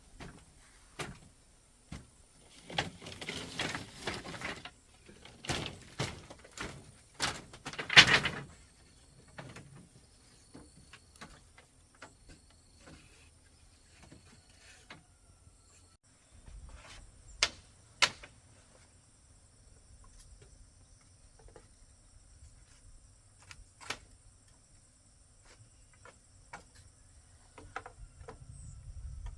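Irregular knocks, clicks and scraping of objects being handled, with a loud cluster about eight seconds in and a few sharp single knocks later.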